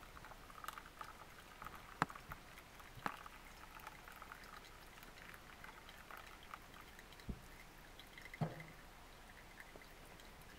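Water poured in a thin stream onto coffee grounds in a paper filter for pour-over coffee: a faint trickle, with a few sharp clicks and knocks along the way.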